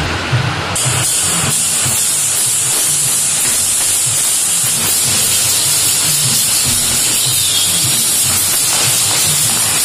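Loud, steady hissing noise that sets in sharply about a second in, over a low, uneven throb.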